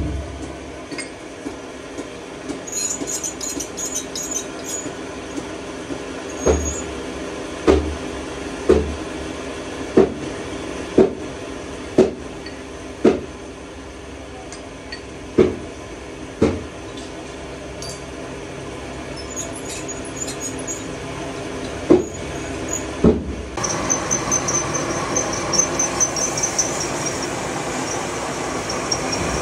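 Belt-driven metal lathe running with a steady hum, broken by a dozen sharp knocks, about one a second, as the tool post and carriage handles are worked. Near the end the running gets louder and a high, fast-pulsing whine joins it.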